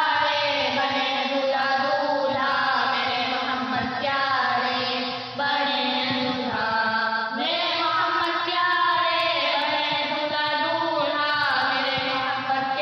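A naat, an Urdu devotional poem praising the Prophet Muhammad, sung by male voices in long, drawn-out melodic phrases.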